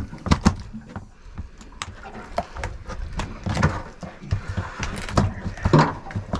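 Irregular knocks and thumps of a freshly landed red throat emperor flapping against the boat deck while it is being unhooked.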